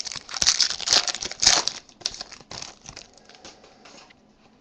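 A Panini Select football card pack wrapper being torn open and crinkled by hand. The crackling is loudest in the first two seconds, then thins to a few fainter crackles that die away.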